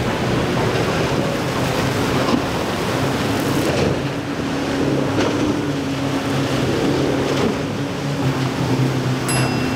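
Twin Yamaha 150 outboard motors on a World Cat 25-foot catamaran running steadily under power through rough inlet chop, a low engine drone over the rush of breaking waves and spray. Wind buffets the microphone.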